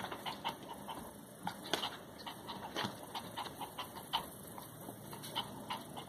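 Small dog panting in quick, short breaths, about four a second and a little uneven: agitated panting that the dog-sitter suspects comes from the dog having swallowed Adderall.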